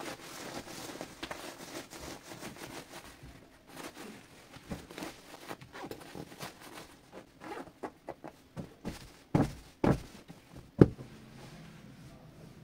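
Fabric cushion and its cover being handled: scattered rustling and light scratching of cloth, then three dull thumps near the end as the cushion is pressed and set upright.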